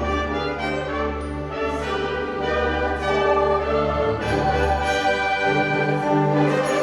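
School orchestra playing, with brass including French horns prominent over strings and sustained low bass notes.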